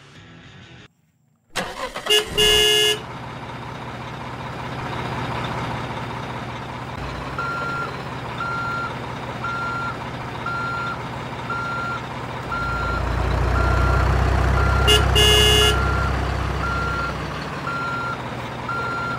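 Truck sound effects: horn blasts about two seconds in and again near fifteen seconds, over a steady engine rumble that swells for a few seconds in the latter half. A reversing beeper sounds about once a second through the second half.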